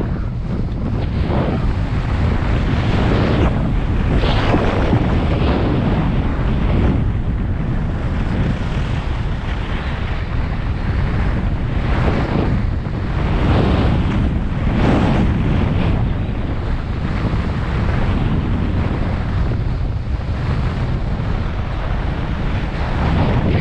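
Rushing wind buffeting the camera's microphone as a skier goes downhill, with repeated hissing swells from ski edges scraping over hard-packed groomed snow, about one every second or two as the skier turns.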